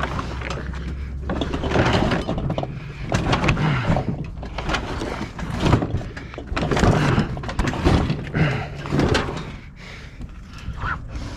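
Scrap metal being handled and loaded: an irregular run of clanks, scrapes and thuds as metal pieces are moved and dropped.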